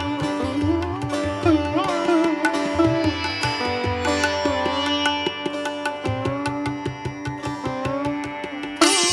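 Instrumental background music: a plucked string melody with sliding, bending notes over a steady drone and a regular low drum beat. A bright cymbal-like swell comes in near the end.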